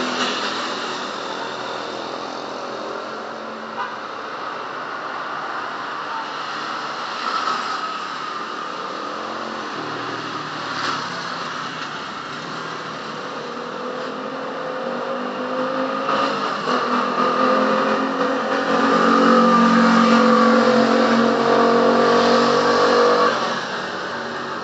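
Street traffic: motor vehicle engines passing on the road. One engine grows louder and rises in pitch over the last several seconds, then drops away suddenly near the end.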